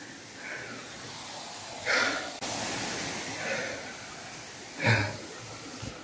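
A man breathing out hard in short bursts, twice, about three seconds apart, over a steady rushing hiss that grows louder for about a second in the middle.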